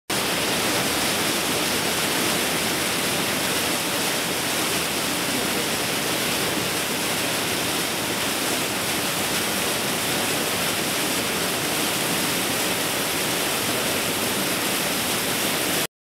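Waterfall pouring down a narrow granite chute into a pool, a steady rush of water that cuts off abruptly near the end.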